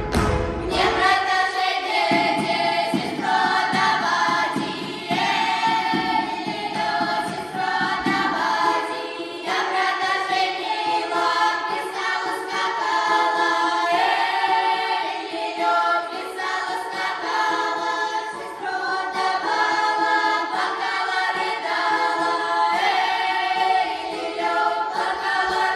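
A group of voices singing a traditional Russian folk round-dance song unaccompanied, in several parts. A few knocks and low thumps from the preceding accompanied passage are heard right at the start.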